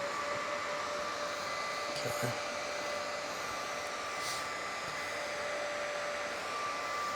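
Cooling fan of a red light therapy device running steadily: an airy whir with a steady whine.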